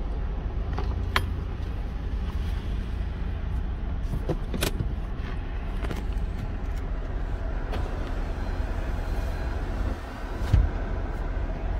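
A car heard from inside the cabin while being parked, its engine giving a low, steady rumble. A few sharp clicks come in the first five seconds and a dull thump near the end.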